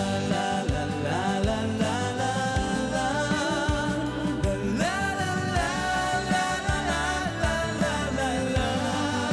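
Male voices singing a pop ballad live with band accompaniment and a steady drum beat. About five seconds in, the singing climbs to a high, held note.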